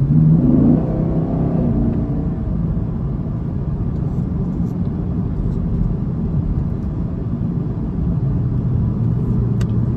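Chevrolet Camaro SS's 6.2-litre V8 and road noise heard from inside the cabin while cruising: a steady low rumble, with a brief louder engine note shifting in pitch in the first second.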